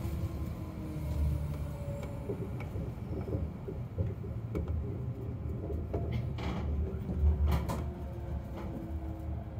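Chiba Urban Monorail Type 0 car running with a low rumble and a motor whine that falls slowly in pitch as it slows for a station. A few knocks come about two-thirds of the way through.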